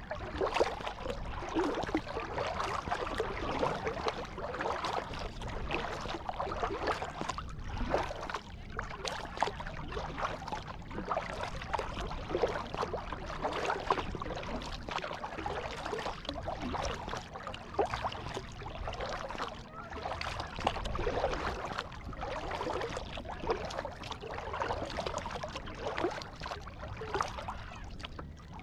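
Kayak paddle strokes on open water: irregular splashing and dripping as the paddle blades dip in and pull, with water lapping against the hull.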